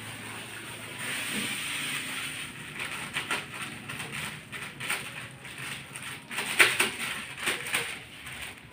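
A thin plastic bag crinkling and crackling in the hands as it is squeezed and emptied into a wok. A soft rushing noise comes first, then irregular crackles and clicks.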